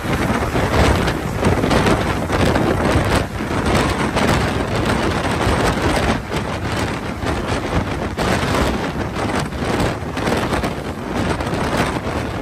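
Loud wind buffeting the microphone: a dense rush with irregular gusts and surges.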